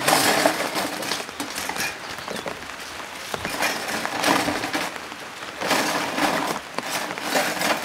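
Dishes being washed by hand in plastic basins: water splashing and sloshing, with dishes clinking now and then.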